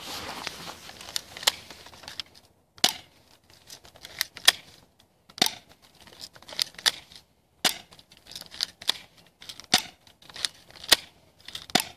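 Irregular sharp clicks and crunches, one or two a second, with quiet gaps between them.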